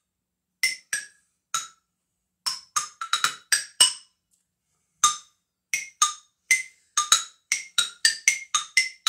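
Wooden-bar xylophone struck with mallets, played freestyle: about twenty single notes at changing pitches, each ringing briefly, in an uneven rhythm with a short pause about four seconds in.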